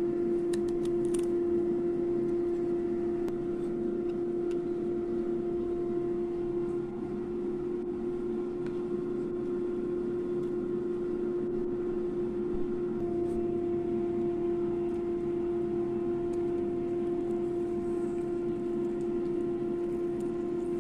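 A steady machine-like hum with one constant low tone, its character shifting slightly about 13 seconds in, with a few light clicks near the start.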